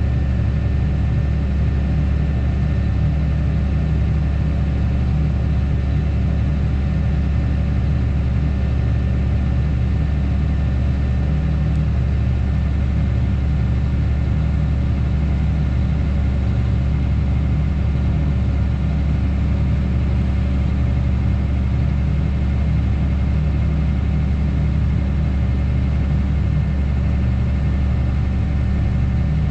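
Tractor's diesel engine running at a steady speed, an even drone that doesn't change.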